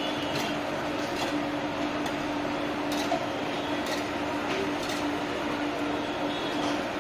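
Steady mechanical hum and rush at a hot dosa griddle, with light metal clinks of a spoon against a steel cup several times.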